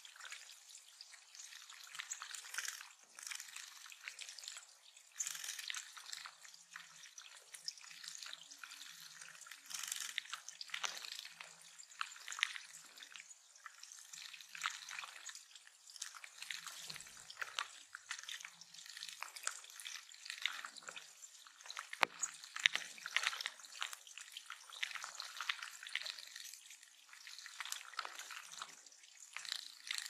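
Small warblers splashing as they bathe in a shallow rocky pond, with water trickling and dripping over stones. It is an irregular, crackly patter of little splashes.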